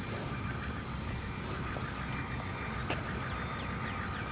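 Steady low rumble of work trucks' engines and passing traffic, with a faint steady whine over it and a single sharp click about three seconds in.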